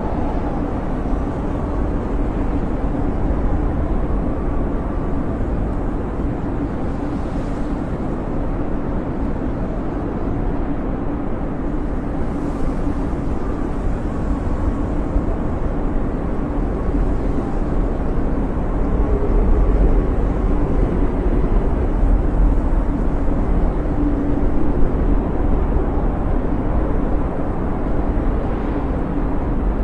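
Snowstorm wind howling steadily: a deep rumble with a faint whistle over it, swelling a little about two-thirds of the way through.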